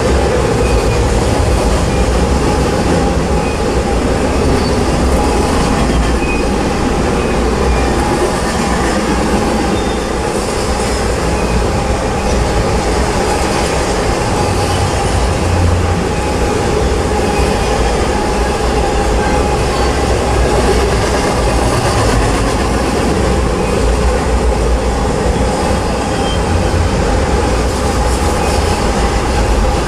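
Double-stack intermodal freight train's container well cars rolling past close by: a loud, steady rumble and clatter of steel wheels on the rails, with a faint steady tone running over it.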